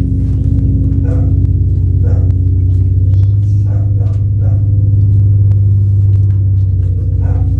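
Loud, steady electronic drone of several low sustained tones, gong-like, from a sound installation; its low end shifts about three seconds in.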